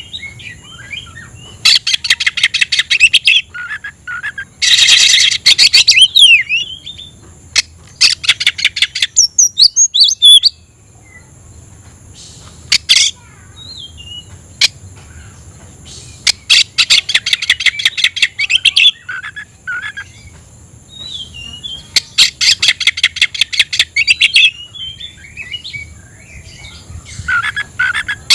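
Oriental magpie-robin (kacer) singing hard in a challenging song aimed at a rival: five loud bursts of very rapid, rattling repeated notes, each a couple of seconds long, with short whistled glides and scattered softer whistles between them.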